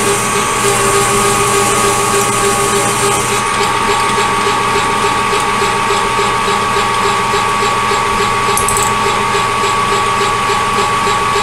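Metal lathe running at reduced speed while a carbide-tipped drill in a drill chuck cuts a pilot hole, giving a steady mechanical whine with a faint regular ticking.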